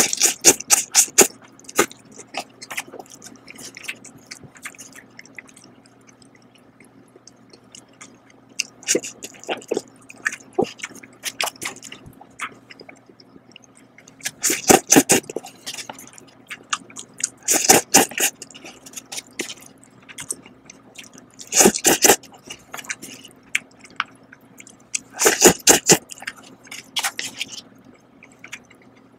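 Close-up eating sounds of instant cup noodles: noodles slurped in short bursts every few seconds, the loudest about halfway through and near the end, with wet chewing between.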